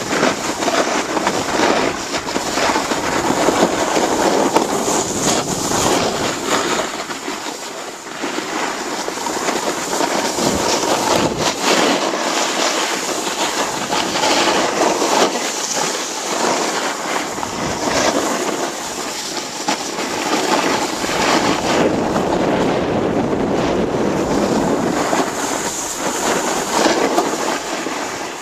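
Wind rushing over a handheld camera's microphone mixed with a snowboard scraping over packed snow during a run down the piste, loud and continuous, rising and falling as the board turns.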